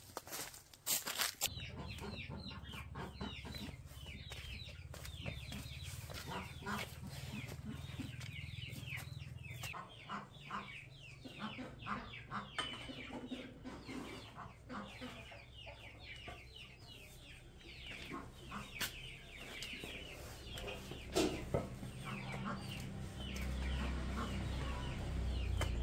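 Chickens clucking and chirping, a dense run of short, falling calls, over a steady low rumble. A few sharp knocks come right at the start.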